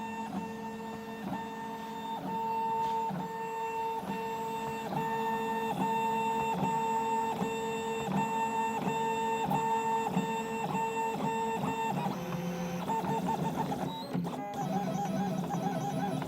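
Stepper motors of a Fischertechnik 3D printer whining at steady pitches while it prints, the tone breaking and restarting about twice a second as each move begins. About twelve seconds in, the motor pattern changes to shorter, wavering tones.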